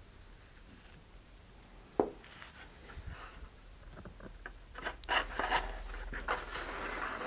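Balsa wood wing tab rubbing and scraping against the paper body tube as it is worked into its slot, with one sharp tap about two seconds in; the rubbing grows busier near the end.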